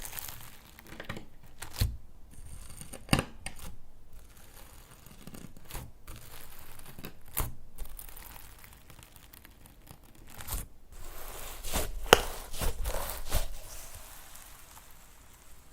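Slime being squished and stretched by hand, giving irregular sticky crackling and tearing noises with scattered sharp pops.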